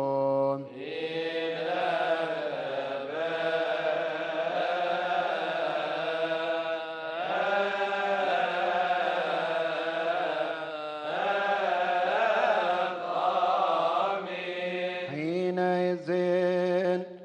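Coptic Orthodox liturgical chant: a slow, melismatic sung response before the Gospel reading, its melody winding through long held notes. Near the end a single male voice takes up a steady held reciting tone.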